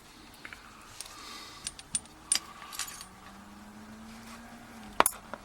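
Small metallic clicks and clinks from handling a picked euro cylinder lock and its tools, with two sharp, louder clicks near the end.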